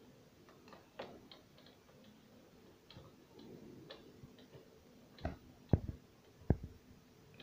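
Screwdriver tip clicking and scraping against the metal lock fittings at a steel door's edge, a scattering of light ticks followed by three sharper metallic knocks about five to six and a half seconds in.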